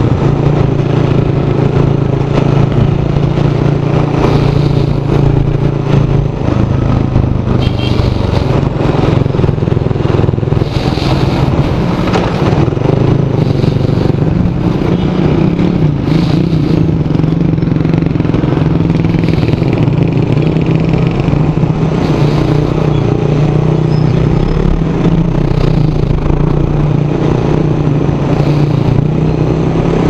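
Suzuki Raider R150's single-cylinder four-stroke engine running while the motorcycle is ridden, picked up close by a helmet chin-mounted microphone. The engine note is mostly steady and shifts a little in pitch with the throttle a few times.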